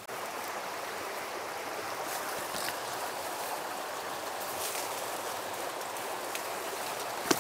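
Small mountain creek running, a steady even rush of flowing water, with a few faint snaps and one sharp click near the end.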